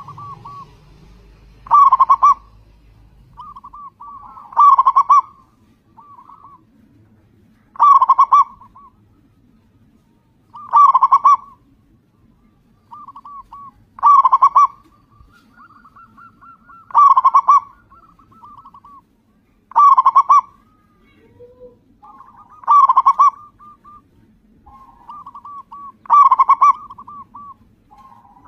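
Zebra dove (perkutut) cooing steadily: a loud cooing phrase about every three seconds, nine in all, with softer rolling coos in between.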